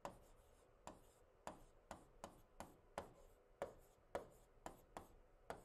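Pen writing on the glass screen of a Promethean interactive display: faint, quick taps and short scrapes, two or three a second, as words are handwritten.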